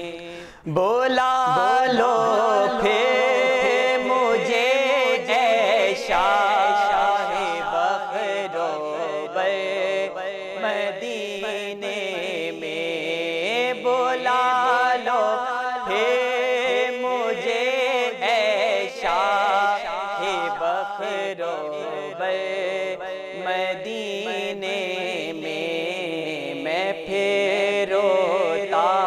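A man's solo voice singing an Urdu naat, a devotional poem in praise of the Prophet, in long ornamented melodic lines. There is a brief break just before a second in, after which the singing carries on.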